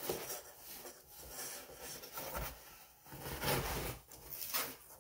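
Cardboard rubbing and scraping in irregular bursts as the flaps of a large shipping carton are pushed open and the inner box inside is gripped and pulled against it.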